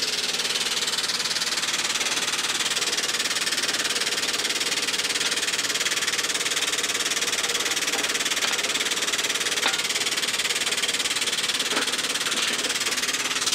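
Air-over-hydraulic pump of an 8-ton long-ram jack running steadily, a continuous hiss with a faint hum, as it pumps the ram up under air power. A few faint ticks come through near the end.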